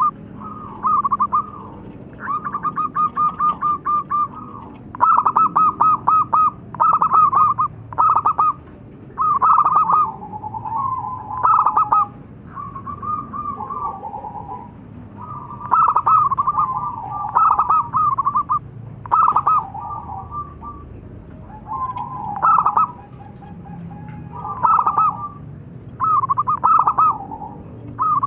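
Zebra dove (perkutut) cooing in short runs of rapid staccato notes, repeated every second or two. Some phrases drop lower in pitch toward their end.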